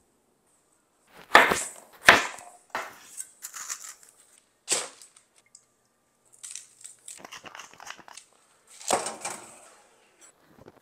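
Kitchen food-preparation noises in separate short bursts: a loud sharp crunch a little over a second in and another about two seconds in, then softer crinkling and scraping, and another loud crunch about nine seconds in.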